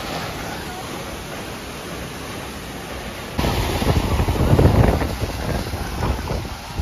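Steady rushing noise, then about halfway through an abrupt change to louder, gusty wind buffeting on the microphone.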